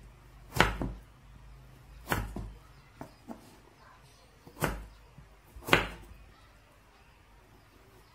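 Kitchen knife cutting through a raw peeled potato and knocking down onto a wooden cutting board: four sharp chops at uneven intervals, with a couple of faint taps between them.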